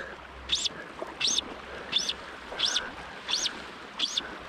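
A bird calling a short, high note that rises and falls quickly, repeated about six times at an even pace.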